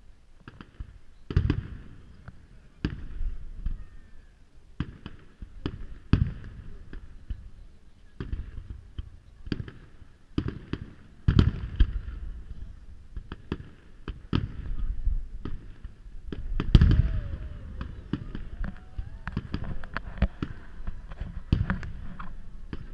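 Aerial firework shells launching and bursting in a long run of sharp bangs at irregular intervals, with the heaviest bangs near the start, about halfway through and about two-thirds of the way through.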